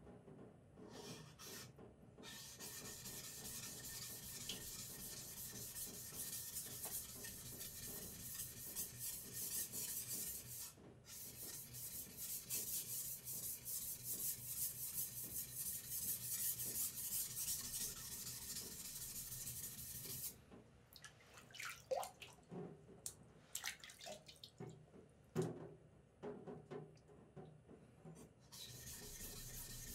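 Steel blade of a yanagiba sashimi knife rubbed back and forth by hand on a wet whetstone, a steady scraping hiss: hand finishing of the edge. About two-thirds of the way through the strokes stop for several seconds, leaving a few light knocks and clicks, then the rubbing resumes near the end.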